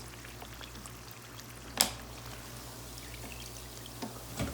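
Chicken wings deep-frying in hot oil: a steady sizzling hiss. A sharp click about two seconds in, and a smaller knock near the end.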